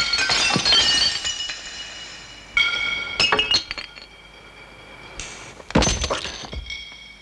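Glass breaking and clinking, with a few sharp crashes of glass about two and a half, three and six seconds in and ringing tinkles lingering between them.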